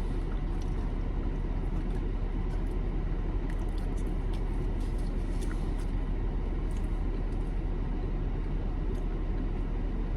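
Steady low rumble inside a car cabin, with a few faint small clicks over it.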